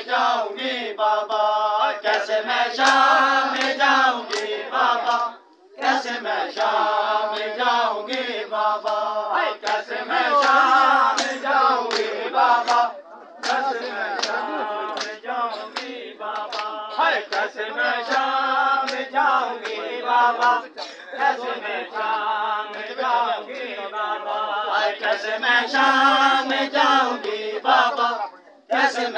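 Men chanting a noha together in chorus, with the sharp slaps of hands on bare chests (matam) beating time through the chant. It breaks off briefly about five seconds in and again near the end.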